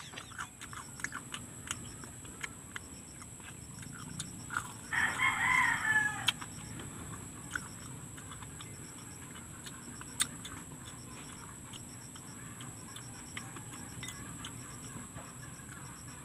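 A rooster crows once, about five seconds in, in a pitched call lasting just over a second that falls at its end. Around it are scattered short crunchy clicks of chewing crispy fried chilies.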